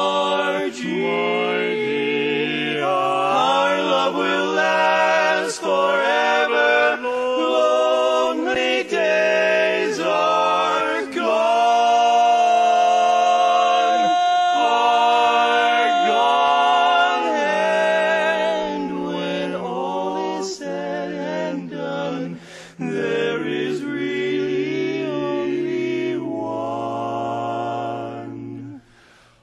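Male barbershop quartet singing a cappella in close four-part harmony, the voices moving from chord to chord and holding one long sustained chord midway through. The singing drops off just before the end.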